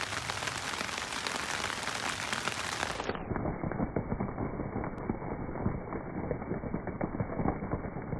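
Rain falling on leafy foliage: a steady, dense patter of many small drops. About three seconds in, the sound turns muffled as its high end drops away, and the lower patter carries on.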